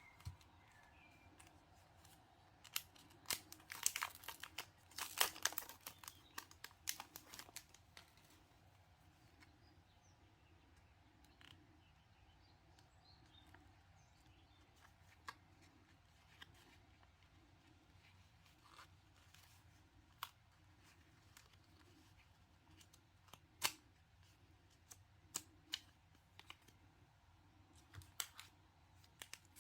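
Crinkling and rustling of packaging and paper as stationery is handled, with scattered sharp clicks and taps. The handling is densest a few seconds in, then thins to occasional clicks. Faint bird chirps sound now and then in the background.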